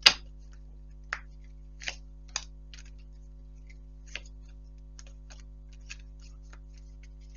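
Tarot cards being handled and laid down on a table: light, scattered clicks and taps, the sharpest right at the start, over a faint steady hum.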